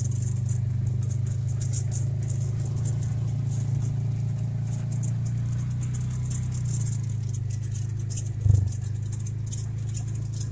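Side-by-side utility vehicle's engine running steadily at low speed on a rough dirt trail, with the cab and body panels rattling over the bumps. A single thump about eight and a half seconds in.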